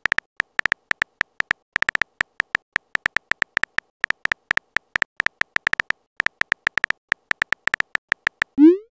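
Simulated phone-keyboard typing sounds from a texting-story app: a short, high tick for each letter typed, coming in quick irregular runs of about five or six a second. Just before the end, a short rising swoop sounds as the message is sent.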